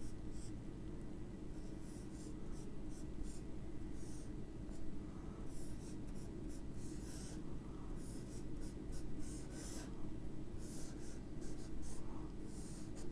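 Marker pen scratching and squeaking on a whiteboard in many short, irregular strokes as a circuit diagram is drawn, over a steady low hum.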